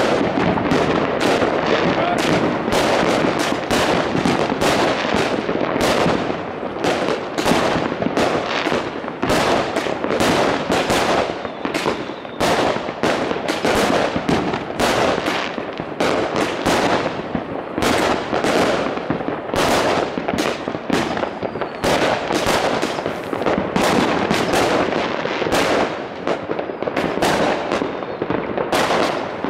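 Many aerial fireworks going off at once from all over a town: a continuous barrage of sharp bangs and crackles, several a second, that never lets up.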